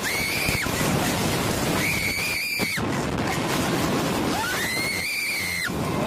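A young girl screaming on a Slingshot catapult ride: three long, very high-pitched screams, each held about a second, near the start, around two seconds in and near the end. Steady wind rushes over the ride-mounted microphone throughout.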